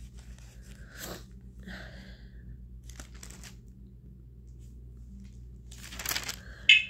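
Paper pages of a Bible rustling and crinkling as they are handled, in short scattered rustles with a denser, louder crackle near the end, over a low steady hum.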